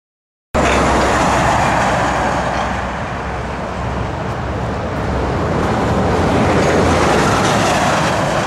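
A motor vehicle running close by: a loud, steady engine rumble with a noisy hiss over it. It cuts in abruptly about half a second in, after a moment of silence.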